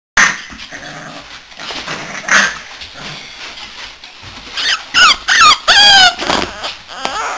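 Puppies whining and yelping: softer sounds at first, then a loud run of about five high cries, each rising and then falling in pitch, around the middle.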